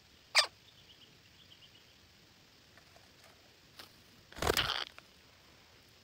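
Parakeets calling: one sharp squawk just under half a second in, faint chirps after it, then a louder, noisier half-second burst about four and a half seconds in.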